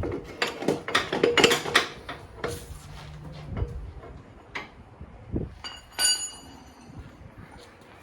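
Rear axle being tapped through a motorcycle's swingarm and wheel with a rubber mallet: a quick run of sharp knocks in the first two seconds, then scattered lighter clicks. About six seconds in comes a single ringing metallic clink.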